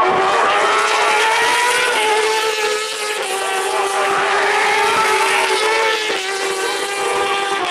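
World Superbike racing motorcycles at full throttle, several engine notes overlapping at high revs, their pitch shifting a few times as the bikes pass.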